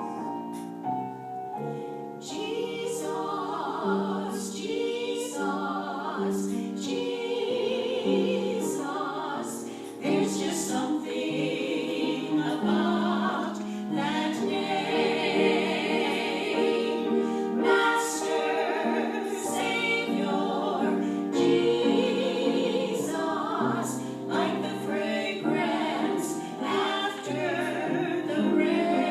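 A choir singing in held chords that change every second or so.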